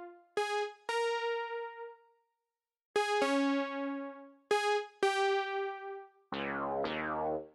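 Quiet, sparse synthesizer keyboard notes in the ending of a house music track, struck one or two at a time with short silences between, each ringing out and fading. Near the end a fuller, lower chord enters with tones sweeping downward.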